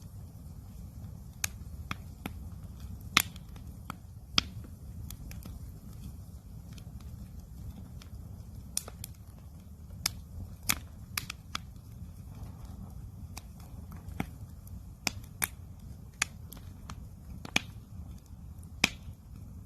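Wood campfire crackling, with sharp pops at irregular intervals, some much louder than others, over a steady low rumble.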